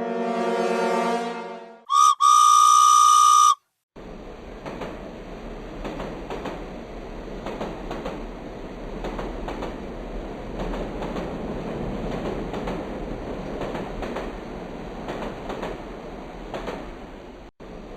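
A train whistle blows one loud, steady high note for about a second and a half and cuts off sharply. After a moment's silence a train runs steadily along the rails.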